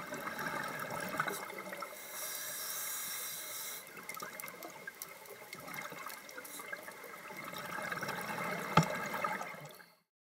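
Underwater sound of scuba regulators and exhaust bubbles, a steady bubbling and gurgling. A brighter hiss lasts under two seconds partway through, a sharp click comes near the end, and then the sound cuts off.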